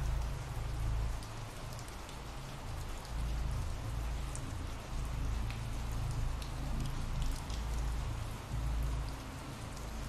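Steady rain falling: an even hiss with scattered fine drop ticks over a deep low rumble.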